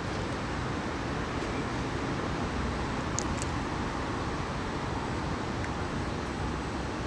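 Steady outdoor background noise with a low rumble and hiss, and two brief high chirps about three seconds in.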